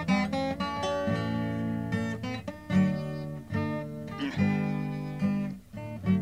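Solo acoustic guitar picked in a blues-gospel style, repeated low bass notes under quicker treble runs: the song's instrumental introduction.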